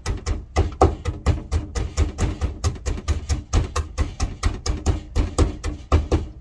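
Kitchen knife rapidly mincing garlic on a wooden cutting board: quick, even knocks about five a second.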